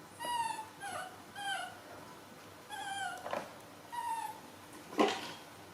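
Baby monkey crying in short high-pitched calls, about five in the space of a few seconds, each a clear note that bends or slides down in pitch. A sharp knock about five seconds in is the loudest sound, with a softer one a little after three seconds.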